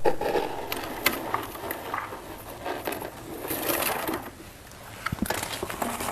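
Crunching of icy humidifier frost: a quick, irregular run of crisp crackles and sharp clicks, easing briefly about four and a half seconds in before picking up again.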